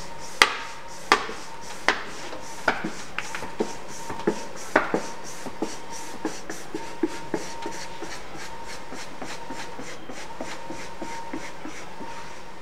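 A series of sharp taps and knocks, about one a second for the first five seconds, then lighter, quicker ticks, over a faint steady hum.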